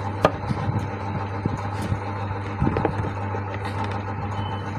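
A steady low hum with a few sharp clicks and knocks.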